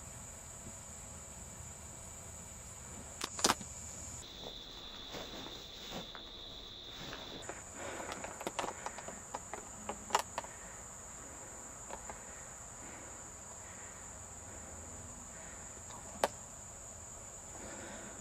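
Steady high-pitched chorus of crickets in a grass field, with a few sharp clicks and scattered rustling crackles near the middle.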